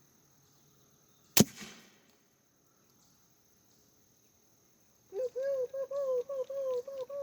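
A single sharp crack of an air-powered BB gun firing, about a second and a half in. Near the end comes a run of about eight short pitched calls in quick succession.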